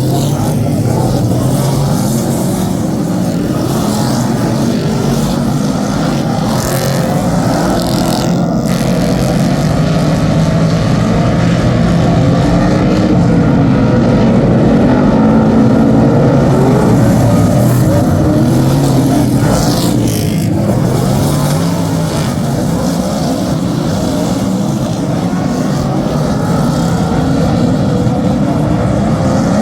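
Superstock race cars' V8 engines running hard around a speedway oval, the engine note rising and falling as they lap, with a car sweeping past close about twenty seconds in.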